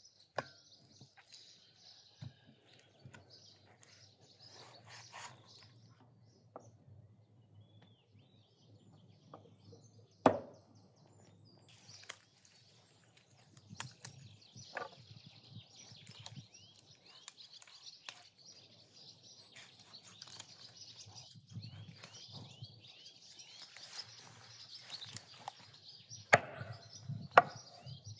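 A large knife cutting through raw chicken on a wooden cutting board, with a few sharp knocks of the blade against the board. The loudest knock comes about ten seconds in and two more come close together near the end. Small birds chirp in the background.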